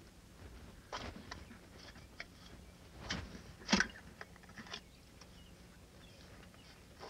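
Scattered clicks and scrapes of hands working at an oil filter under a car, with one sharper knock about four seconds in.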